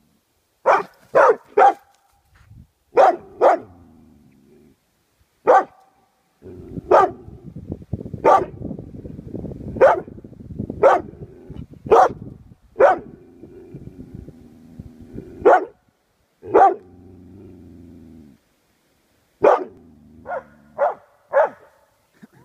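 Lapponian herder barking at a white-draped 'ghost' figure: about eighteen sharp single barks, some in quick pairs and triples, with a low rough noise between barks in the middle stretch.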